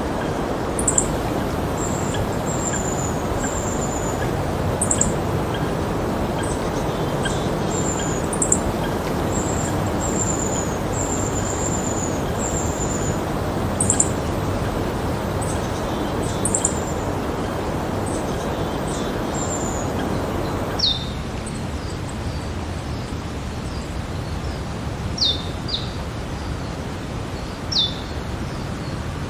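Steady rain falling, with birds chirping over it in short, high, falling notes. About two-thirds of the way through, the rain noise drops to a lower level and a few louder, sharper chirps stand out.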